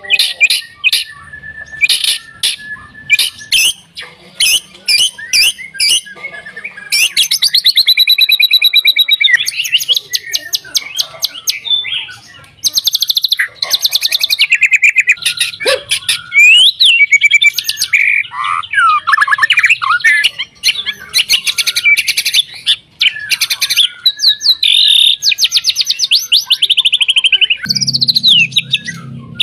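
White-rumped shama singing a loud, varied full song. It opens with runs of short, sharp separate notes, then from about a quarter of the way in goes into near-continuous fast trills and sweeping whistled glides.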